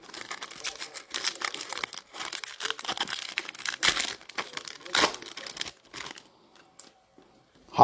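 Trading card pack wrappers crinkling and tearing as packs are opened and handled, a dense run of crackles that stops about six seconds in.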